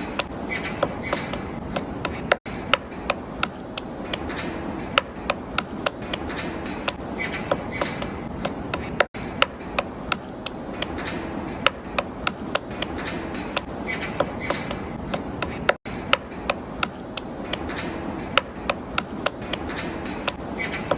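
A rapid run of sharp taps, about two to three a second, with brief high chirps every few seconds. The same few seconds of sound repeat about every seven seconds.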